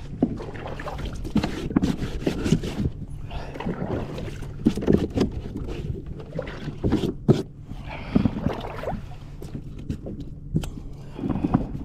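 Water being splashed and sloshed in a fishing kayak as it is rinsed out by hand. It comes as a run of irregular splashes.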